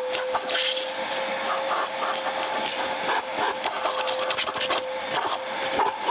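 Kärcher vacuum cleaner running with a steady whine, with irregular clicks and scrapes from the nozzle working over the car interior.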